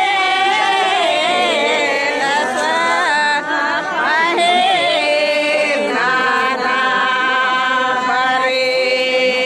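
Several voices singing a chant-like lota pani welcome song, with the pitch moving in the first half and long held notes from about halfway on.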